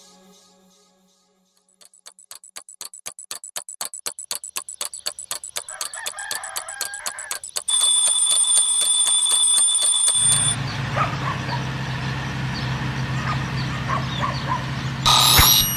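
A mechanical twin-bell alarm clock ticking rapidly, several ticks a second, then its bells ringing for about three seconds. A riding lawn mower's small engine then runs steadily, with bird chirps over it, and a short whoosh sounds near the end.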